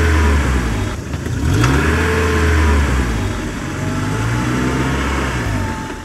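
Tractor engine sound effect revving up and down in about three slow swells, as though the tractor is straining under a load.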